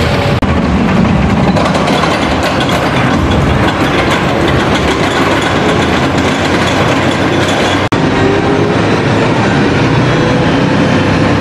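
Arrow Dynamics steel looping roller coaster train running over its track: a loud, steady rush of wheel noise that drops out for an instant twice.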